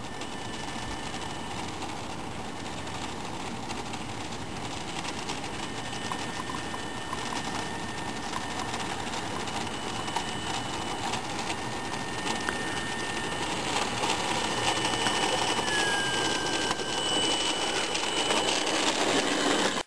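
Electric motor and propeller of an RC Beech Staggerwing biplane taxiing on asphalt: a steady whine that grows louder as the plane comes closer, dropping slightly in pitch about sixteen seconds in.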